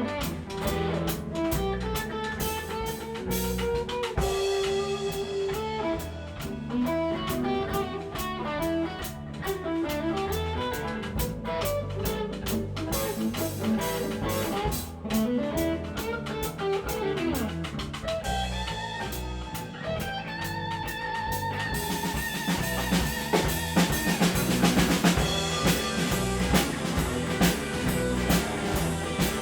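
Blues band playing an instrumental break: a guitar plays a lead line with bent notes over a steady drum kit rhythm. The band gets louder near the end.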